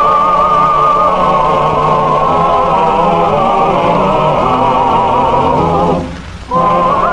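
Slow closing-theme music with a sustained melody and heavy vibrato. It dips out for about half a second near the end, then picks up again.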